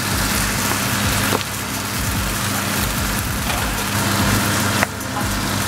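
Tomato and onion sauce sizzling in a frying pan while a wooden spoon stirs in a block of palm soup base, with a couple of sharp knocks of the spoon against the pan. A steady low hum runs underneath.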